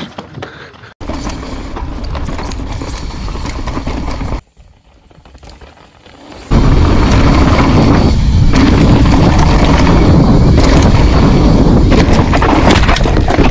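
Mountain bike riding down a dirt trail, heard from a camera on the bike or rider as a steady rushing noise of wind and tyres on dirt. It comes in several cut-together pieces, with a quiet gap about four and a half seconds in. The loudest, deepest stretch of rumbling starts about six and a half seconds in.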